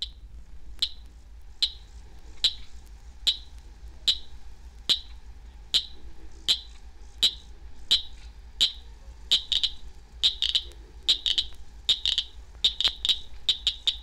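A lone southern cricket frog (Acris gryllus) calling: a series of sharp clicks, at first about one a second, then quickening into runs of two and three clicks from about nine seconds in. It is played back from a vinyl record, with a faint steady hum underneath.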